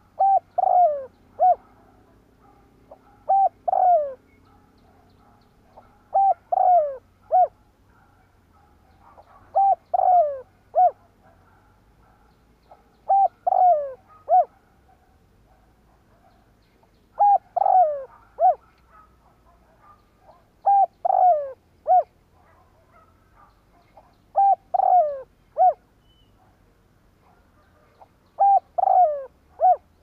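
Spotted dove cooing: a short three-to-four-note phrase, its main notes sliding downward, repeated nine times about every three and a half seconds.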